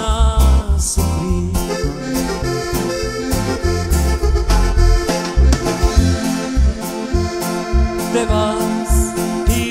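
Live band music over a loud PA: a keyboard playing an accordion-like lead over a steady pounding bass and drum beat.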